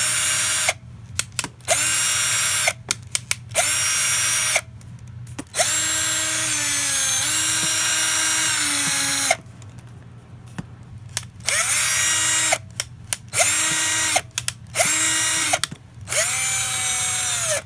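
Black+Decker cordless drill running unloaded in a series of trigger pulls, some quick blips and some held for a second or more, the motor whine rising in pitch as each pull spins up. About six seconds in comes a longer run of three seconds or so in which the speed dips and then picks up again.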